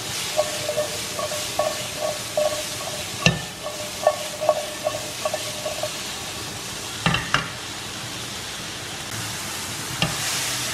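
Shallots and mushrooms sizzling in butter over high heat in a non-stick frying pan, a steady frying hiss. The pan is shaken on the gas-hob grate, giving a run of short scrapes in the first half and a few sharp knocks, near 3 s, twice around 7 s and near 10 s.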